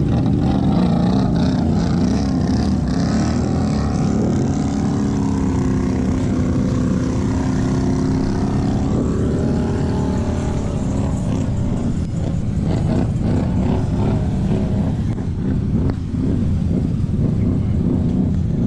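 A vehicle engine running hard and loud, holding a steady pitch for several seconds midway, then easing off.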